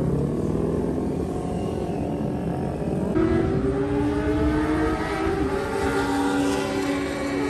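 Several sportbike engines running at high revs as motorcycles ride out of pit lane and along the track, their pitch rising and falling. A louder engine note cuts in about three seconds in.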